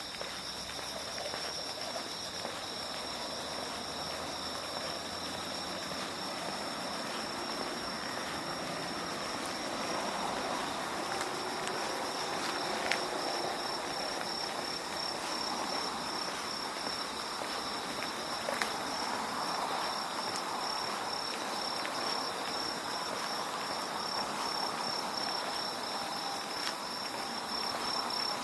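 A chorus of autumn-night insects singing steadily, two kinds at two different high pitches. A soft rushing noise swells under it from about a third of the way in, with a couple of faint clicks.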